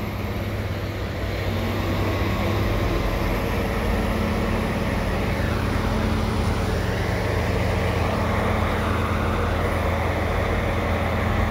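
Diesel engines of heavy dump trucks and snowblowers running steadily in a low drone.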